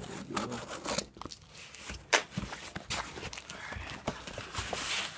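Cardboard shipping box and its packing being opened and handled: tearing, scraping and rustling broken by sharp knocks, the loudest about two seconds in.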